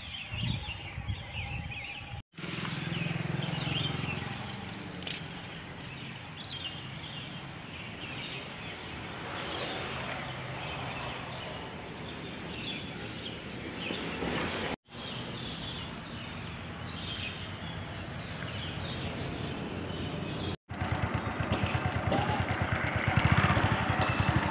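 Roadside outdoor ambience: steady traffic noise with a motorcycle engine, louder and more pulsing near the end. The sound drops out briefly three times.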